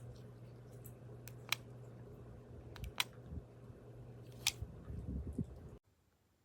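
Sharp clicks of a Sycelu RF page turner being operated, three loud ones about a second and a half apart with a few fainter ones, over a low hum, followed by a couple of soft handling thumps. The sound cuts off abruptly near the end.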